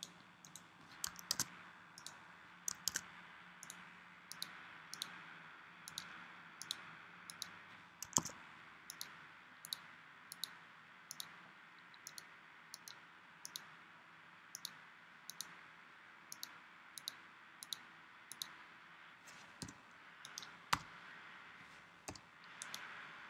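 Computer mouse button clicking at a steady pace, about two quiet clicks a second, each click filling one shape with Illustrator's Live Paint Bucket. One click about eight seconds in and another near the end are louder, over a faint room hiss.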